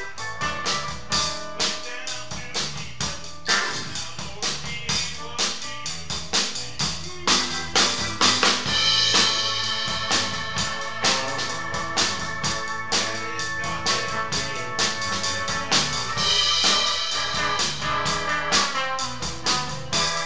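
Live drum kit and keyboard playing together in a band jam. The drums keep a steady beat under held keyboard chords, and cymbal washes swell about eight seconds in and again near sixteen seconds.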